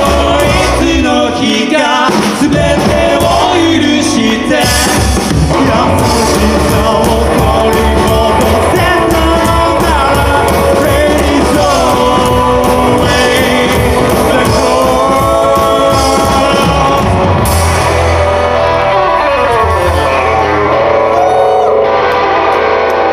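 Rockabilly band playing live, with singing over guitar and drums. The cymbal wash drops away about seventeen seconds in, leaving voice and guitar with held notes.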